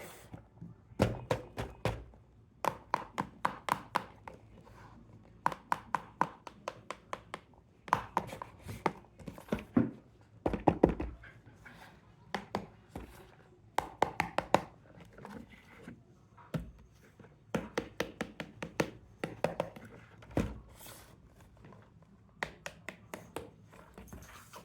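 Hard plastic toys knocking and clacking in quick runs of sharp taps and clicks, several a second, with short pauses between the runs.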